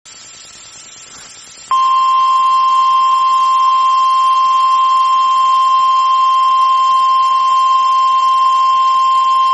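NOAA Weather Radio's 1050 Hz warning alarm tone: one loud, steady tone that starts about two seconds in and holds without a break. It signals that a warning message, here a tornado warning, is about to be read. Before it there is a faint steady hiss.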